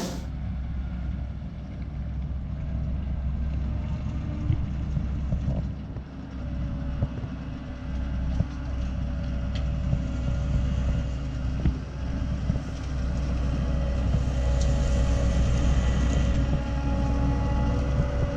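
Diesel engine of harvest machinery running steadily with a low drone, a few faint clicks over it, growing slightly louder in the second half.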